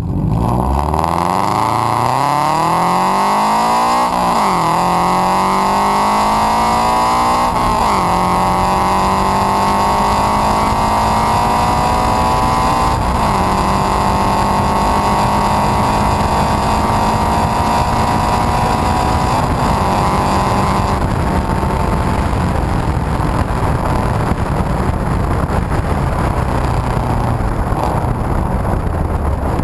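FT86 flat-four boxer engine through a JDL unequal-length header and single-exit race exhaust, pulling hard from a standstill. The exhaust note climbs and drops back at each upshift, four shifts in all. After the last shift it eases off into a steady drone mixed with road and wind noise, heard from a camera at the rear bumper near the exhaust.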